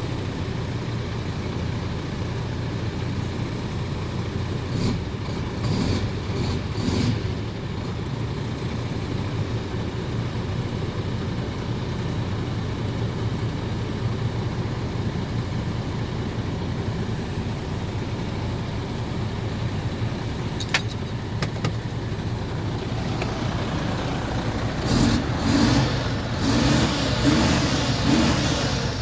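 MAN truck's diesel engine idling steadily, briefly blipped a couple of times, then revved in about four short throttle blips near the end.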